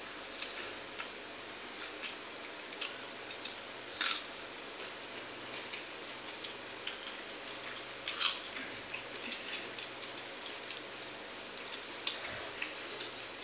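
Eating sounds: hands squishing and mixing water-soaked rice in steel bowls, with chewing and small ticks of fingers against steel. A few sharper clicks stand out about four seconds apart, over a steady background hum.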